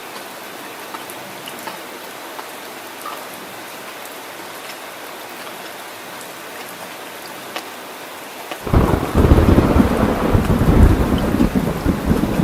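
Heavy rain falling steadily, then about three-quarters of the way through a sudden loud rumble of thunder breaks in and keeps rolling to the end.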